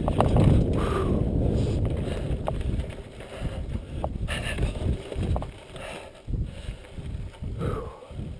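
Mountain bike running fast downhill on a packed-dirt trail: tyre rumble on the dirt and wind buffeting the helmet-mounted microphone, loudest for the first three seconds, then easing off, with scattered clicks and knocks from the bike over the rough ground.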